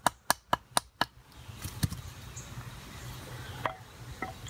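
Wooden baton knocking on the spine of a knife blade, driving it into a stick, in quick even strikes about four a second that stop about a second in. After that comes quieter scraping with a few faint clicks.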